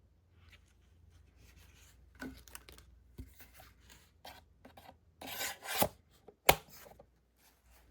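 Irregular handling noises, likely a product box and its packaging being handled: scattered rubbing and scraping with several sharp clicks. The loudest are a scraping patch about five seconds in and a sharp click about six and a half seconds in.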